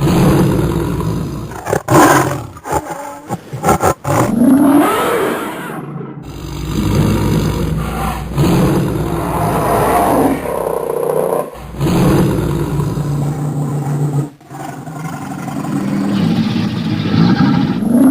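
Dragon sound effect built from layered animal recordings: a run of loud, continuous roars and growls. It breaks off abruptly a few times where the spliced clips join.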